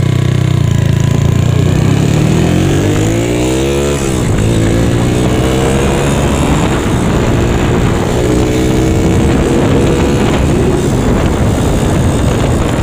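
Single-cylinder four-stroke motorcycle engine from a Honda Megapro, fitted in a Yamaha Mio scooter, pulling under way. Its pitch rises, drops sharply at a gear change about four seconds in, then climbs steadily again through the next gear.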